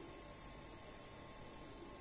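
Faint steady hiss and hum of room tone, with a thin steady high tone and no distinct event.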